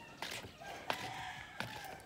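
Footsteps: three sharp steps about two-thirds of a second apart, over faint thin high tones.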